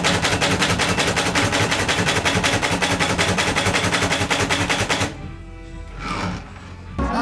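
Manual typewriter typing: a rapid, evenly spaced clatter of type bars striking the platen that stops about five seconds in. Near the end, live band music starts.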